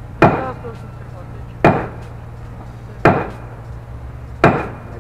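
Heavy hand-tool blows, a person swinging overhead and striking the structure they stand on: four hard strikes about a second and a half apart, each with a short echo.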